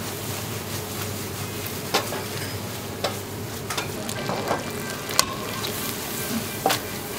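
Buttery sauce and ribbon pasta with shrimp sizzling in a black frying pan over a gas flame as the pan is shaken and tossed, with a few sharp clicks scattered through.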